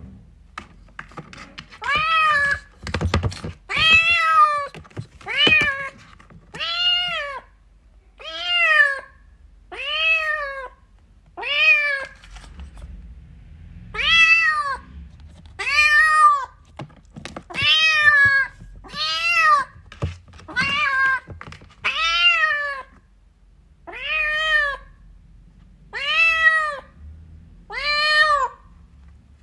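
A kitten meowing over and over, about every one and a half to two seconds. Each meow is high-pitched and rises then falls in pitch: a kitten calling for its mother. A few soft thumps come in the first few seconds.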